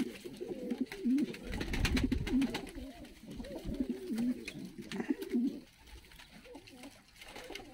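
A flock of domestic fighting pigeons cooing, several wavering coos overlapping, dying down after about five and a half seconds. Around two seconds in there is a short patch of clicks and low rumble.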